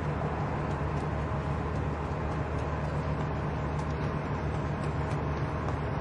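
Light street traffic ambience: a steady low rumble of cars passing, with faint scattered ticks.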